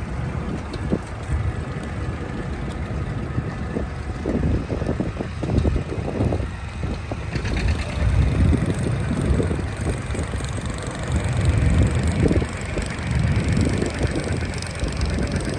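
1947 Farmall M tractor's four-cylinder engine running at low speed as the tractor moves off, a low rumble that rises and falls in loudness.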